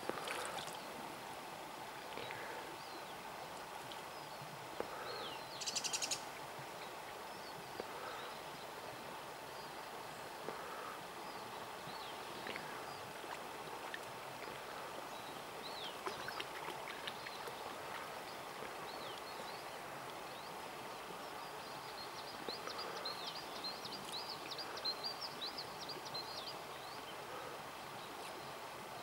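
Steady rush of flowing river water with scattered bird chirps over it; a short rapid trill about six seconds in and a busy run of high chirps a few seconds before the end.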